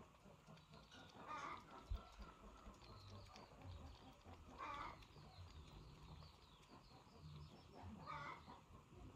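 Faint animal calls: three short calls a few seconds apart, with fainter high chirps between.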